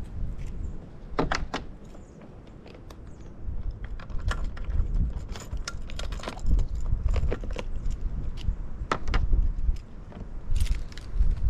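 Tarp being handled and put up: plastic rustling and crinkling with scattered sharp clicks and clinks, over a low, uneven rumble.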